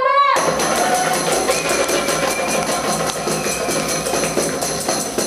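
Fast, steady hand percussion with a bright jingling edge, beginning abruptly about half a second in.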